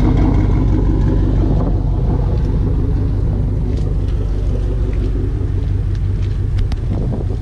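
Pontiac Grand Prix GXP's 5.3 L LS4 V8 idling with a steady low rumble.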